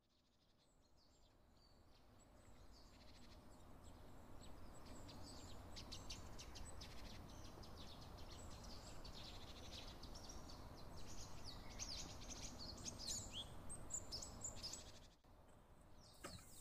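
Faint outdoor ambience with small birds chirping, which begins after about two seconds of silence and drops out briefly near the end.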